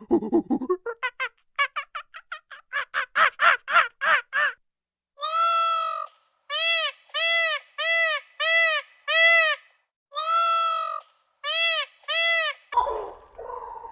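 A bird calling: a fast run of short chattering pulses, then a string of short calls, each arching up and falling in pitch, one of them held longer. A different, rougher animal sound starts near the end.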